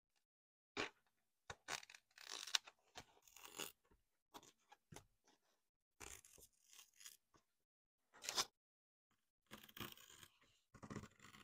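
Scissors cutting a diamond painting canvas, and the stiff canvas and its backing paper crinkling and rustling as they are handled, in short irregular bursts with quiet gaps between.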